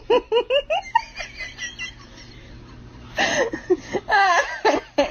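Someone laughing: a quick run of giggles, then more laughter after a short pause.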